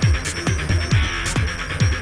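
Electronic dance music with a fast, steady kick-drum beat, about four kicks a second.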